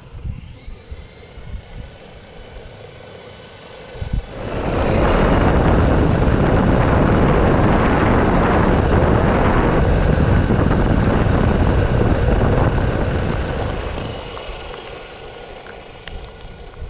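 2WD brushed 1/10-scale RC car running flat out on a 2S LiPo: a loud rushing noise of motor and tyres rises about four seconds in, holds for some eight seconds, then fades away.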